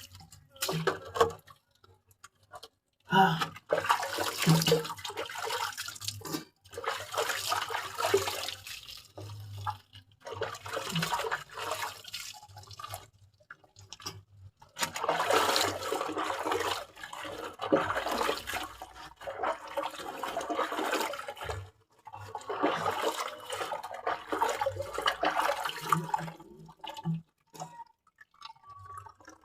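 Water splashing and pouring in repeated bursts of a few seconds each, with short pauses between them, as a person bathes.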